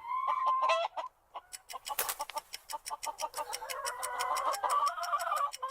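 Chickens clucking: a held call in the first second, then a long run of short, rapid clucks.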